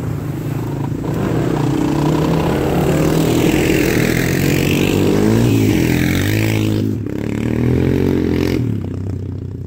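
Sport quad's engine revving hard as it passes on a dirt track, the pitch climbing and falling with the throttle. It drops off about seven seconds in, picks up again briefly, then fades away.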